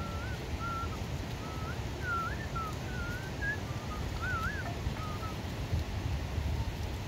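A run of about a dozen short, wavering whistled notes, each sliding up and down, over a steady low rumble of wind on the microphone.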